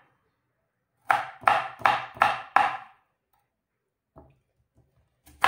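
Kitchen knife chopping a red onion on a wooden board: five quick strikes, about three a second, starting about a second in, then a faint knock about a second after they stop.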